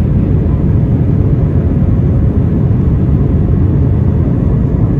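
Airbus A320 cabin noise: a steady, loud low rumble of the jet engines and airflow, unchanging throughout.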